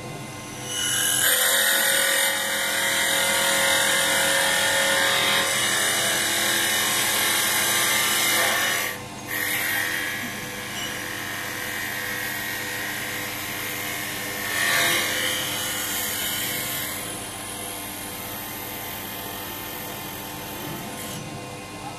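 Mini CNC wood lathe turning a wooden spindle: the motor runs steadily while the cutting tool shaves the spinning wood with a loud, hissing cut. The cutting noise drops briefly about nine seconds in, swells again a little later, and falls away near the end.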